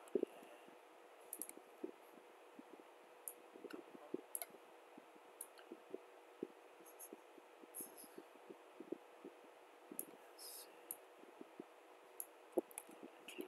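Faint, irregular computer mouse clicks, a couple of dozen spread unevenly, over low background hiss and a faint steady hum.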